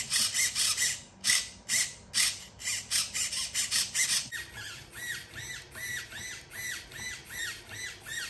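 RC car hobby servos driven back and forth from the remote. First the throttle servo's motor buzzes in quick strokes, about three a second. About four seconds in, the steering servo takes over with short rising-and-falling whines at a similar pace.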